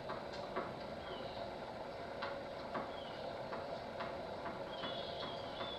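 Tennis ball knocks from a rally, about eight sharp hits spread unevenly, with a few short high squeaks in between, over a steady low hum.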